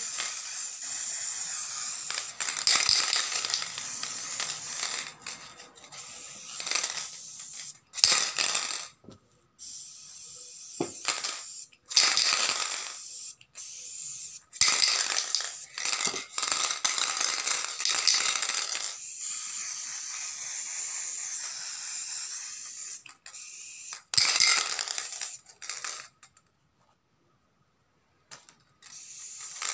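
Aerosol spray-paint can spraying silver paint onto artificial leaves in long hissing bursts, with short pauses and a few sharp clicks between them.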